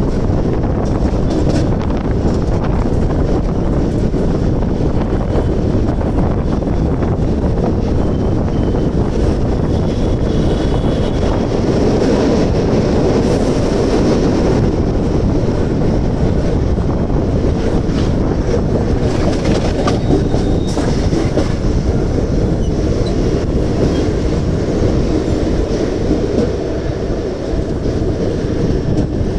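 Mumbai suburban electric local train running along the track, heard from its open doorway: a steady loud rumble of wheels on rail with scattered clicks of the wheels over rail joints.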